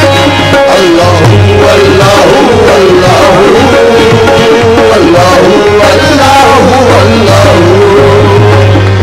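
Qawwali music from a live ensemble: harmonium melody with tabla, playing steadily throughout with a line that glides up and down in pitch.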